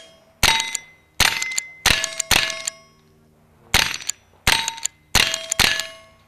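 Winchester 9422 lever-action .22 rimfire rifle firing eight quick shots at steel plate targets. Each sharp crack is followed by the ringing clang of the steel being hit, with a pause of about a second midway through the string.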